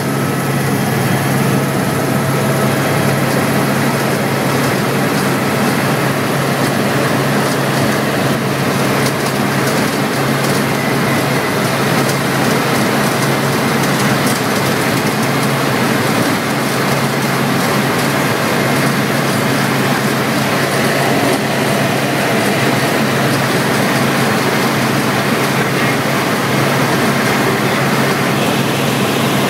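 Helicopter in flight heard from inside the cockpit: steady engine and rotor noise, a constant low hum under a loud even rush that does not change.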